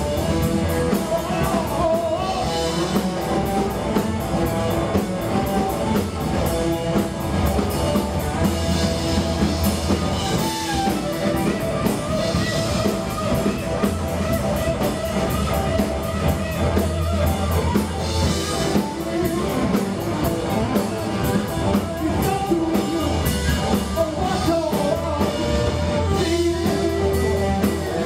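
Live rock band playing: distorted electric guitars, bass guitar and drum kit, with singing.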